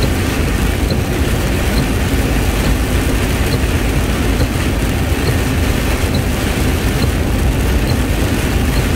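Heavy rain on the windshield and cab of a truck driving at speed, over steady engine and tyre-spray noise heard inside the cab. A faint tick repeats about once a second.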